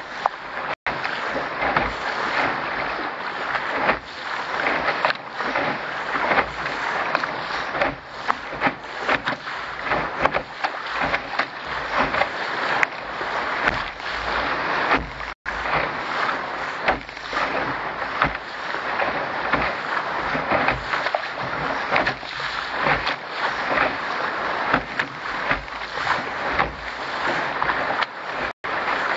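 Water rushing and splashing along the hull of a Contender sailing dinghy moving fast through chop, with frequent slaps of spray. The sound cuts out for an instant three times.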